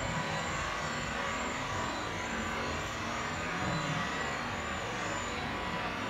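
Steady background noise, an even hiss and rumble with no distinct events.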